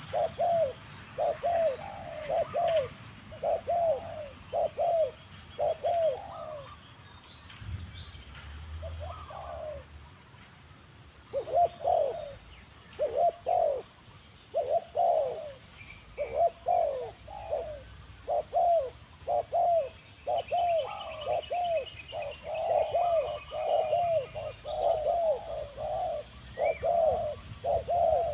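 Spotted dove (terkukur) cooing in a long chained run of quickly repeated coos, with a gap of a few seconds about a third of the way in. Faint higher chirps from a small bird come in past the middle.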